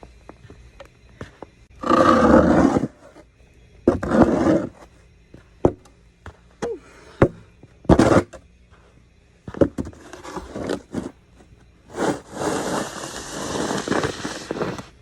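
Snow shovel scraping and pushing through snow in several separate strokes, the longest near the end, with a few sharp knocks in between.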